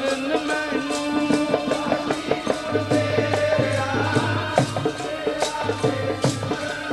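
Punjabi devotional kirtan music: a held, gliding melody typical of a harmonium, over quick, steady hand-drum strokes typical of tabla.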